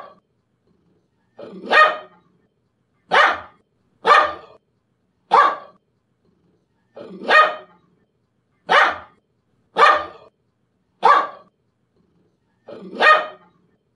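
A dog barking single barks, one every second or two, about nine in all.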